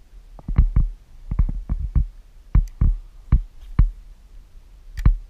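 A quick, irregular run of sharp knocks and thumps, about a dozen, then a pause of about a second before one last knock near the end.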